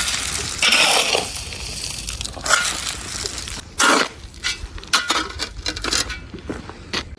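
Masonry work with bricks and mud: scraping and clinking of hard material, with several sharp knocks over a low rumble.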